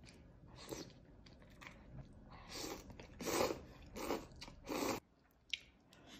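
Close-miked eating from a bowl of noodle soup: a bite, then a run of loud noodle slurps about two and a half to five seconds in, followed by quieter wet chewing clicks near the end.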